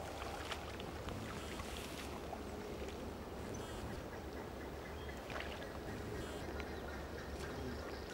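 Wind buffeting the microphone, a steady low rumble, with scattered short, faint bird calls in the background.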